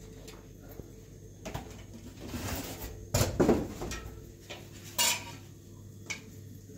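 Kitchenware clattering: a few separate knocks and clinks, the loudest a little past halfway and again about five seconds in, over a steady low hum.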